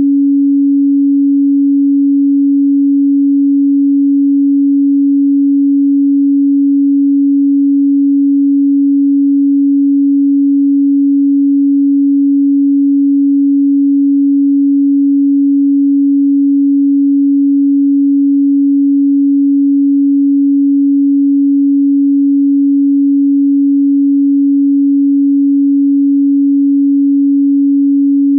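A steady, unchanging 280 Hz sine-wave test tone: one pure low-mid hum with no overtones.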